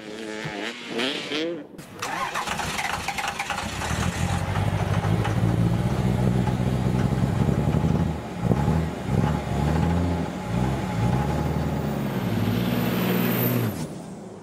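A motor engine starting about two seconds in, then revving up and down repeatedly before dying away near the end.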